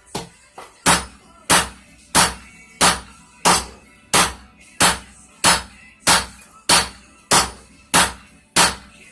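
Hand hammer forging a hot railroad spike on an anvil: two light taps, then a steady run of hard blows about one and a half a second, each with a short metallic ring.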